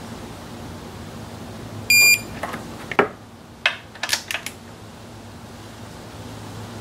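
Digital torque wrench gives one short electronic beep as the nut reaches the set torque, followed by a few sharp metallic clicks of the wrench and socket on the throttle body nuts.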